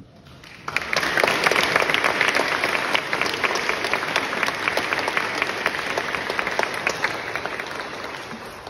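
Audience applauding after a speech, starting suddenly about a second in and dying away near the end.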